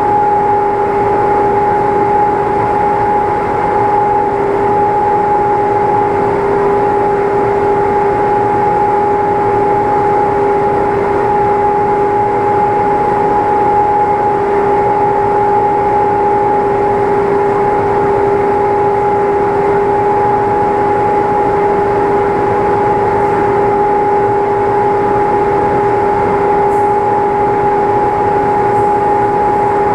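A machine running steadily: a constant rushing hum with a steady whine that holds one pitch throughout.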